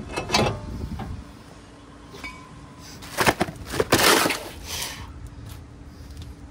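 Metal brake parts and tools clanking and clinking as they are handled, with a few sharp strikes and a louder cluster of clatter about three to four seconds in.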